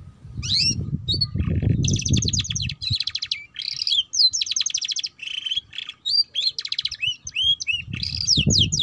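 Domestic canary singing a chattering song of fast trills and short whistled glides that change phrase every half second or so. A low rumble runs under the first three seconds and comes back near the end.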